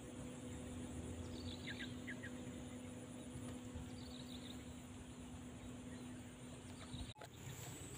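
Faint rural ambience: steady insect buzzing with a steady low hum underneath, and a few short bird chirps about one and a half to two and a half seconds in and again around four seconds. The cast net landing on the water is not plainly heard.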